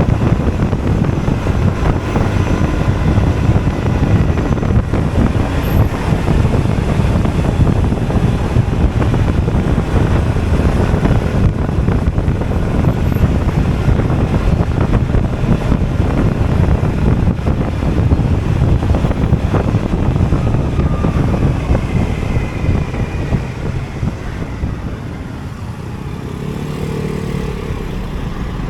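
Honda Forza 250 scooter riding in traffic: a steady rush of wind and road noise over the engine's running, easing near the end as the ride slows.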